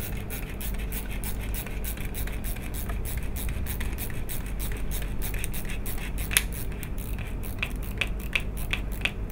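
Pedicle screw being turned by hand with a screwdriver into a synthetic spine model's pedicle: a grinding scrape with many small clicks as the thread cuts into the soft model bone. Sharper clicks come about three a second in the last few seconds.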